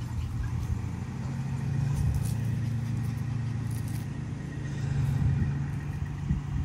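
A steady low engine hum that swells twice, with a few faint clicks over it.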